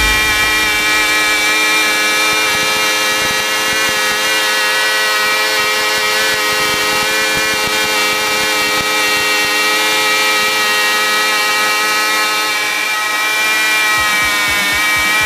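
Two Cox .049 two-stroke glow engines geared together in tandem, running at high speed and spinning a propeller, with a steady high-pitched whine.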